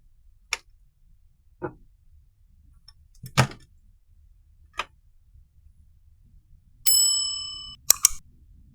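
A few separate sharp clicks and knocks, then a bell-like ding that rings for nearly a second and fades, followed by two quick clicks.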